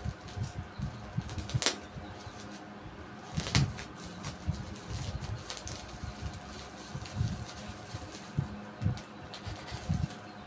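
Shiny black plastic wrapping on a tripod package crinkling and rustling as it is picked at and pulled open by hand, with sharper crackles about 1.7 and 3.5 seconds in.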